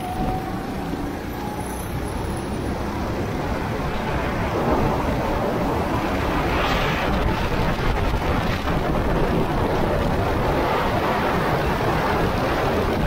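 Go-kart running with heavy wind noise on the microphone, a steady rushing rumble; a faint engine whine fades in the first second or so.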